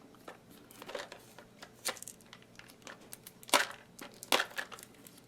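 Plastic packaging being crinkled and pulled at to get it open, with irregular sharp crackles, the loudest about three and a half seconds in.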